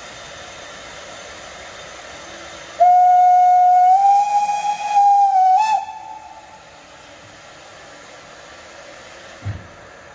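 Steam locomotive whistle sounding one long note of about three seconds, stepping up slightly in pitch partway through, over a steady hiss of steam.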